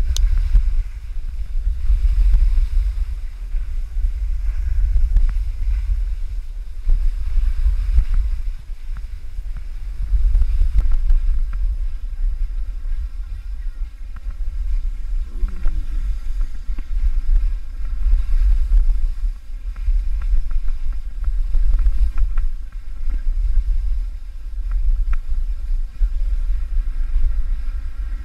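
Wind buffeting a GoPro action camera's microphone while it rides down a ski slope: a low rumble that swells and dips throughout.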